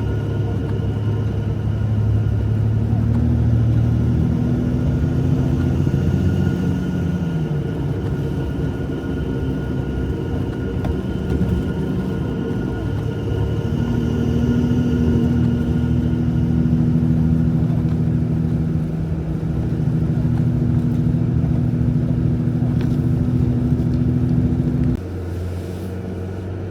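Jeep Gladiator's 3.0-litre V6 EcoDiesel running under way on a trail at low speed, its engine note rising and falling as the throttle changes. The sound drops suddenly in level near the end.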